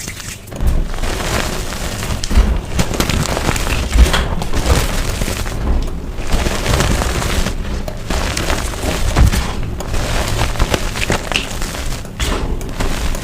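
Blocks of coloured gym chalk being crushed, a dense crunching and crumbling with heavy low thuds every second or two.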